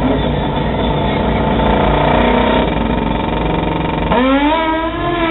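Drag-racing motorcycle engine running at the starting line, then launching hard about four seconds in, its note climbing steeply in pitch as it accelerates away.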